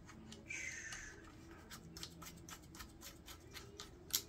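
Phone clamp being fitted onto a selfie-stick tripod by hand: a short scrape, then a run of small clicks about four or five a second, with a sharper click near the end.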